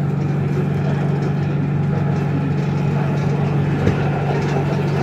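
Inside a moving BTS Skytrain carriage: a steady low hum and running noise of the train under way, with a brief thump about four seconds in.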